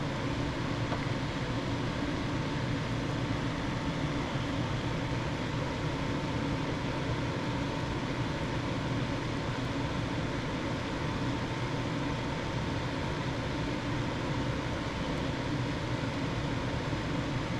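Steady background hum and hiss with a faint steady whine, like a fan or air conditioner running, unchanged throughout; no distinct soldering sounds stand out.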